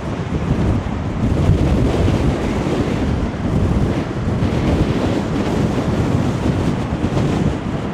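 Strong wind buffeting the microphone, over the rumble of rough sea surf breaking against a sea wall.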